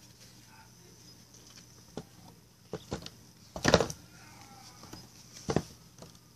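Handling noise of a plastic toy horse being moved about: a few irregular soft knocks and rustles, the loudest about three and a half seconds in.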